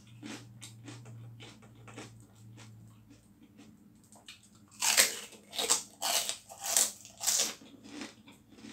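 Close-up bites and chewing of crispy pork rind (chicharon): light crackles at first, then about five loud crunches in quick succession in the second half.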